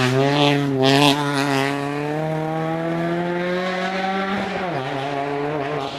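Rally car engine pulling hard as the car accelerates past, its pitch climbing steadily for about four seconds, then dropping sharply on an upshift and holding. Two short hissing bursts come in the first second.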